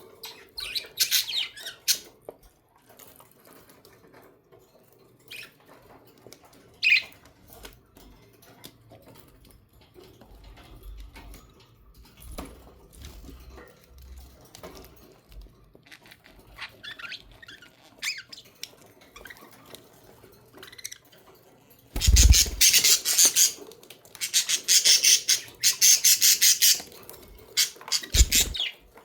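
Budgerigars chirping in scattered short calls, then breaking into loud, rapid squawking chatter about two-thirds of the way through. Two low thumps come with the louder stretch.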